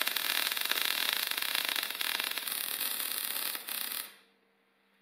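Electric arc welding on steel tube: a steady crackling sizzle of the arc, which cuts off about four seconds in as the weld bead is finished.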